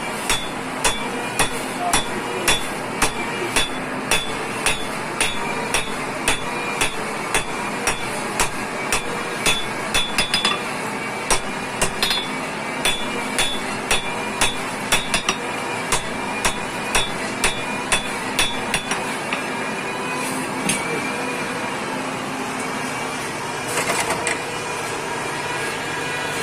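Forging hammer striking a pickaxe's steel in a steady series, about one and a half blows a second. The blows stop about three-quarters of the way through, leaving a steady workshop machine hum.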